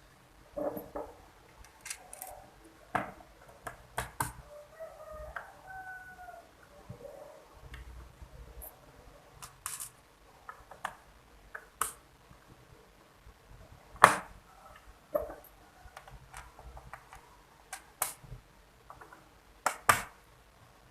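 Scattered clicks, taps and knocks of small plastic and metal parts being handled as a laptop's bottom cover is closed and screwed back on. The loudest sharp knocks come about two-thirds of the way in and again near the end.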